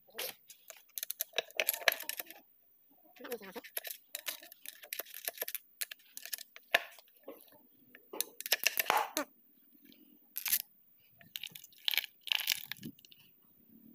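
Irregular metallic clinks, knocks and scrapes of steel parts being handled in the opened planetary gearset of a tractor's rear wheel hub, as the planet gears and a steel bar are moved against the housing.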